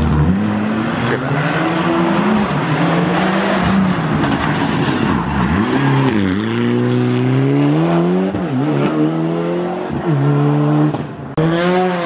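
Rally car's turbocharged four-cylinder engine, a Mitsubishi Lancer Evolution, working hard through a hairpin: the pitch drops as it slows into the bend, then climbs in repeated rises broken by drops at the gear changes. Near the end it cuts abruptly to another rally car's engine revving.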